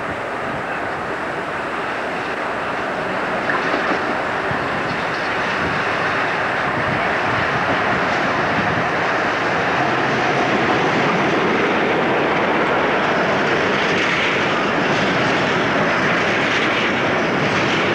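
Class 47 diesel locomotive hauling a train of bogie tank wagons through the station: its engine grows steadily louder as it approaches, then the wagons run past at an even level.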